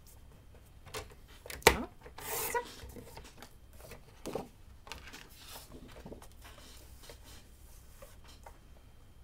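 Stampin' Up! paper trimmer cutting a sheet of cardstock: a sharp click about a second and a half in, then a short scraping cut. The card is then lifted, shuffled and slid back into place on the trimmer, with light rubbing.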